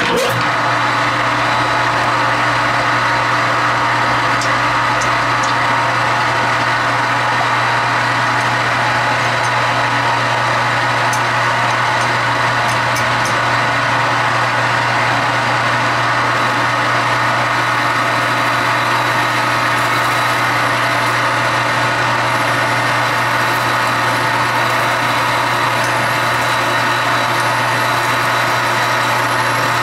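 Metal lathe running steadily, its motor and gearing giving a constant hum and whine, while a 35/64-inch drill is pushed through a hole in a steel part.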